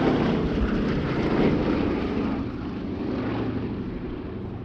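Boeing B-17G Flying Fortress's four Wright Cyclone radial piston engines running as the bomber passes, loudest about a second and a half in and fading toward the end.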